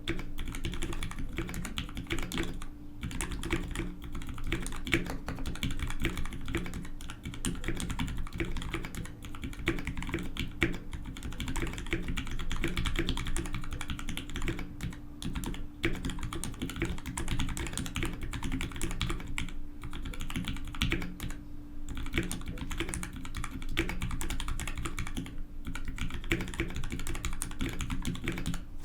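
Steady typing on an ALF DC60 mechanical keyboard with lubed Gateron FF Yellow linear switches (Krytox 105 and 205) and GMK doubleshot ABS keycaps: a dense run of keystroke clacks, broken only by a few short pauses.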